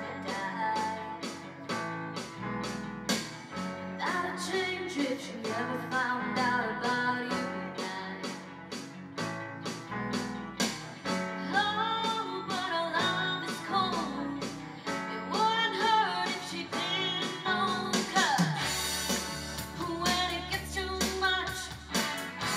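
Live rock band playing: a female lead singer over electric guitars, bass, keyboard and a steady drum beat. Near the end the cymbals come in heavier.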